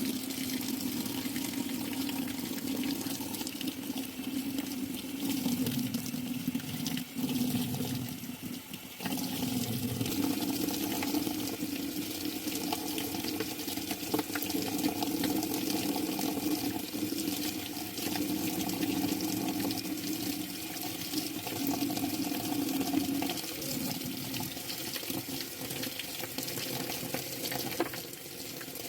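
Water running steadily, starting suddenly, with a brief dip about seven to nine seconds in.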